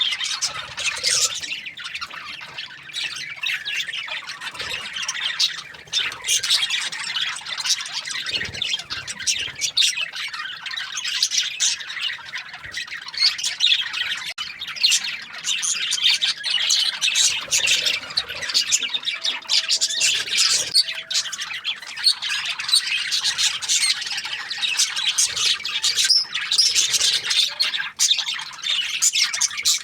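A flock of budgerigars chattering and chirping together, a dense, continuous mass of short high-pitched chirps and squawks.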